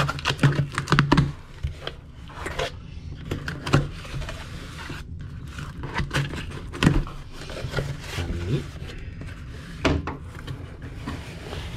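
Cardboard shipping box being cut open with a utility knife and its flaps pulled back: scraping and slicing of the blade through tape and cardboard, rustling cardboard, and a few sharp knocks.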